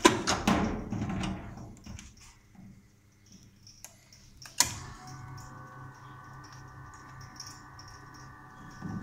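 Clatter of plastic handling in the first second or so, then a sharp click about four and a half seconds in, after which a steady whine with several tones sets in: the boiler's EBM-papst RG148 blower fan running after its repair.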